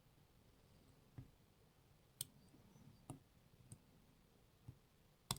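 Faint, irregular metal clicks from a lock pick working the pins of a CES pin-tumbler lock, about six in all, with the sharpest near the end.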